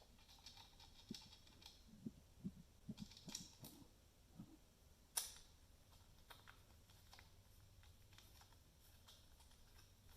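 Faint scattered clicks and light knocks of a hard disk being handled and screwed into a plastic NAS drive cartridge, with one sharper click about five seconds in.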